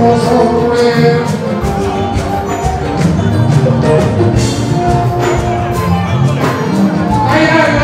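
Fuji music performed live: a male voice singing over a band with regular percussion strokes.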